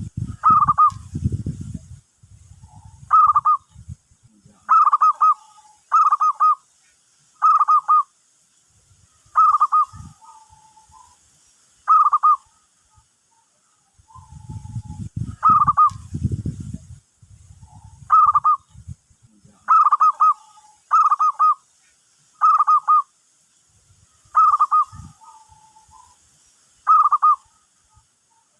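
Zebra dove (perkutut) cooing: short rolling coo notes repeated about every one to two seconds, with softer lower notes between, a call used to lure doves. A low rumble comes twice, at the start and about halfway through.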